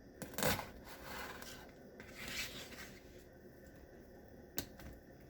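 Kitchen knife cutting through a pepper on a cutting board: a sharp knock of the blade against the board about half a second in, then a couple of rasping slicing strokes and a light tap near the end.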